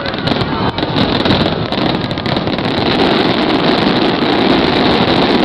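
Fireworks finale: many aerial shells bursting in quick succession, the bangs overlapping into a continuous loud rumble with crackle.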